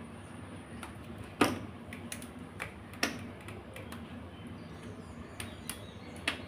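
Irregular sharp clicks and cracks from a raw crab's shell being snapped and pulled apart by hand, with one louder crack about one and a half seconds in.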